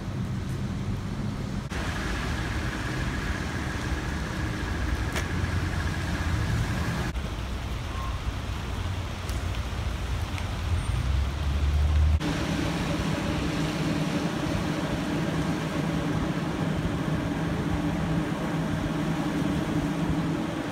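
Street traffic on wet city roads: a steady low rumble of engines and tyres with a constant hum, changing abruptly at three cuts between clips.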